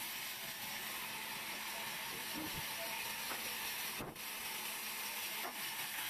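Large vertical band sawmill running, its blade and motor giving a steady, even hiss. A few faint knocks come through, and there is a short dip about four seconds in.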